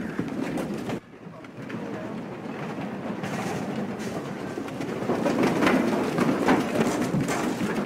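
Thousands of small rubber super balls bouncing on a paved street, a dense rattle of many small hits. It drops suddenly about a second in, then builds back up and is loudest from about five seconds on.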